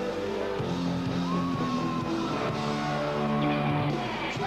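Live band music: a pop-rock song played by a band with electric guitar, held chords changing about once a second, and one gliding note near the start.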